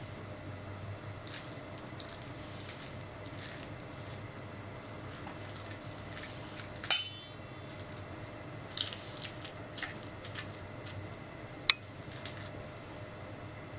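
A metal spoon scraping the flesh out of a whole orange, with soft wet squelches and scrapes, and two sharp clinks of the spoon against a stainless steel bowl, the loudest about seven seconds in with a brief ring, the other near the end.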